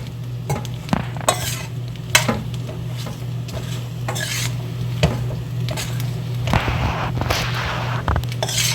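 A spoon stirring macaroni with butter and cheese in a pot on low heat, with irregular knocks and scrapes against the pot and a longer scraping stretch near the end. A steady low hum sits underneath.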